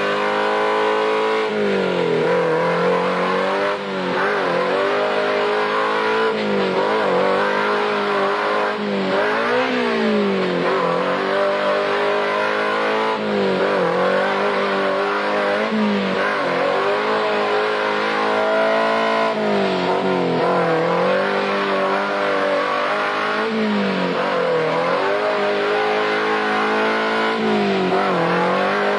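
Suzuki Samurai engine under load in deep mud, its revs dipping and climbing back every two to three seconds as the throttle is worked.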